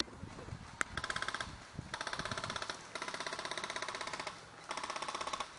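Airsoft rifle firing four full-auto bursts of rapid, evenly spaced shots, the longest over a second long, with short pauses between them.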